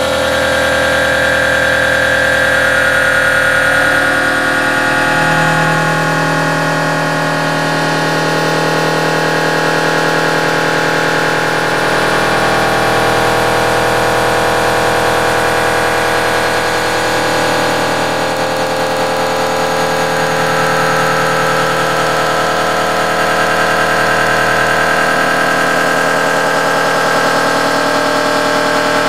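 Loud, steady electronic drone of many layered tones, its pitches shifting every few seconds, like a heavily stretched and distorted sound.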